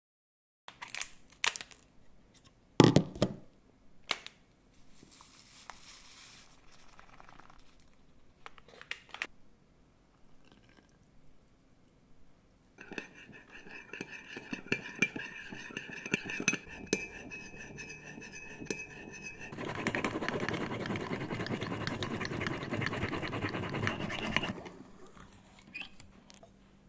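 A metal spoon rapidly whipping instant coffee with a little water in a ceramic cup: a fast scraping, with the cup ringing steadily. It is led in by a few sharp clinks and knocks near the start. About two-thirds of the way through, a louder, even rushing sound takes over for about five seconds.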